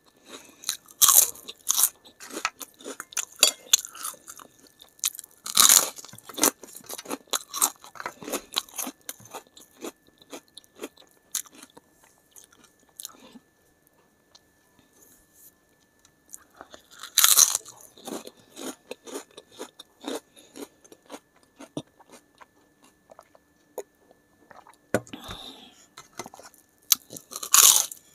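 Crisp papad being bitten and crunched close to the mouth, with softer chewing between bites. Loud crunches come about a second in, near six seconds, around seventeen seconds and just before the end, with a quieter pause around the middle.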